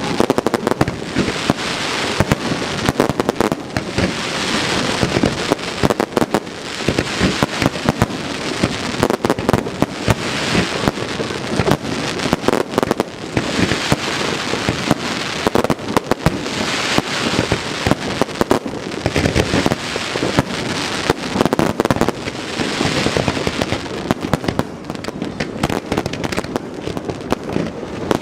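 Fireworks display set off close overhead: a rapid, unbroken run of bangs and crackling bursts.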